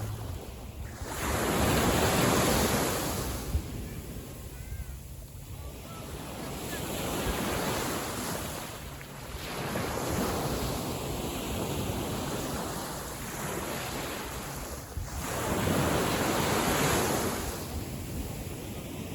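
Small sea waves breaking and washing on a beach, each wash swelling and fading every few seconds, loudest about a second in and again near the end, with wind buffeting the microphone.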